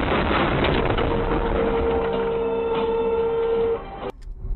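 Vehicle noise from a dashcam recording: a steady rushing noise with a held tone running for about three seconds, then cut off abruptly near the end.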